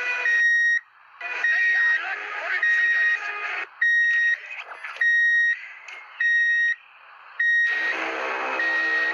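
An electronic alarm beeping steadily: a high, even tone about half a second long, repeating about every 1.2 seconds, eight times in all. It plays over a busy, broken-up mix of other audio, which gets fuller near the end.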